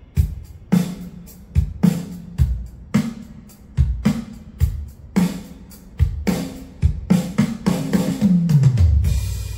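Yamaha Genos 2 keyboard sounding its Ambient Drums kit voice: a kick-and-snare pattern of sharp hits, ending near the end in a tom fill falling in pitch and a cymbal crash.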